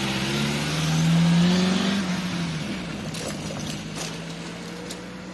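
A vehicle pulling away: its engine or motor note rises in pitch as it speeds up, then fades as it moves off.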